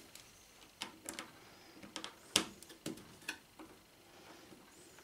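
Light clicks and taps from a hand tool and wires being handled at a screw terminal block, about seven in all and scattered, the sharpest a little after two seconds in.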